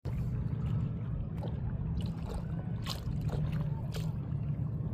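Water splashing and sloshing in short, irregular strokes over a steady low rumble.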